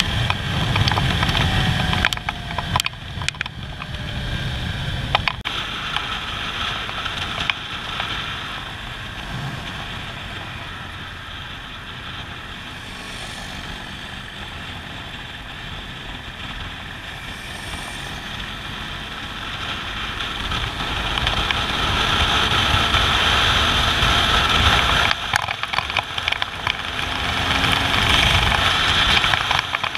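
Motorcycle riding at road speed: the engine runs under steady wind rush on the camera microphone, dipping in the middle and growing louder again in the last third.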